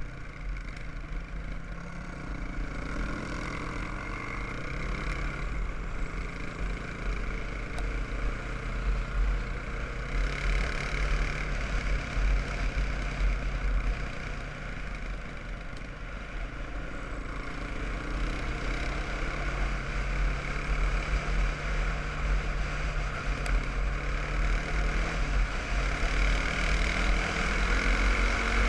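Quad bike (ATV) engine running steadily at cruising speed, its note stepping up and down a few times, with a constant hiss of tyres on gravel and wind on the microphone that grows louder near the end.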